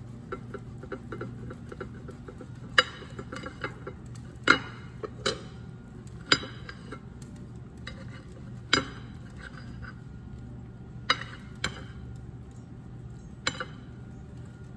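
Table knife cutting an omelette on a ceramic plate, the blade clinking sharply against the plate about eight times, every second or two, with lighter ticks of the knife in the first couple of seconds.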